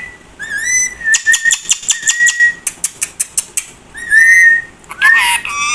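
Rose-ringed parakeet (Indian ringneck) whistling short, high notes that rise and fall, with a quick run of sharp clicks between them.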